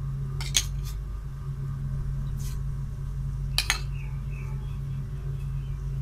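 A steel spoon clinks against ceramic bowls a few times as thick yogurt is scooped out, the loudest pair of clinks a little past halfway. A steady low hum runs underneath.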